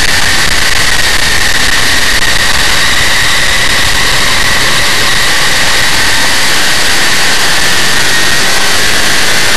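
Big-block Chevrolet V8 of a dirt modified race car running hard at racing speed, heard on board the car: a loud, steady engine noise with no let-up.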